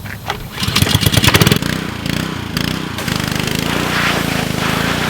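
Small petrol engine of a pressure washer starting up. A loud rapid chatter lasts about a second, then the engine catches, wavers briefly and settles into a steady run from about three seconds in.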